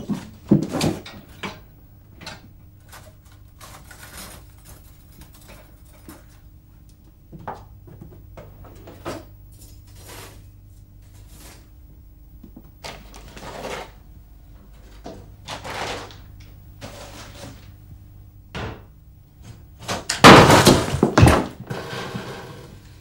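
Kitchen handling sounds: scattered knocks and thunks of cupboard doors, drawers and crockery being moved, with a louder, longer clatter near the end.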